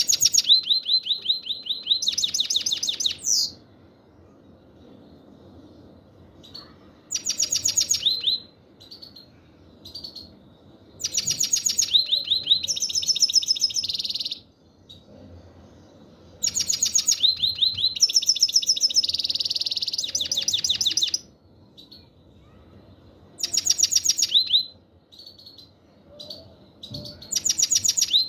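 European goldfinch (black-headed form) giving its 'chir chir' call: bursts of fast, rapidly repeated high chirps, each one to four seconds long, about six times with short pauses between.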